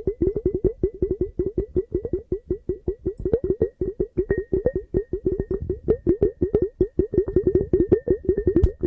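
Rapid knocking on a hollow object, a fast, uneven run of short pitched taps at about seven or eight a second, with a faint steady ringing tone above them.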